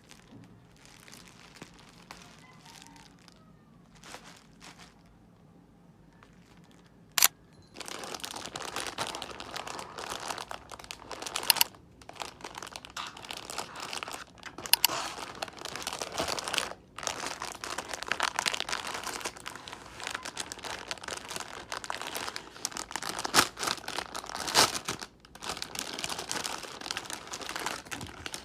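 Plastic packaging crinkling as it is handled and unwrapped. There is a sharp click about seven seconds in, then continuous crinkling with a few more sharp clicks; before that there are only faint handling sounds.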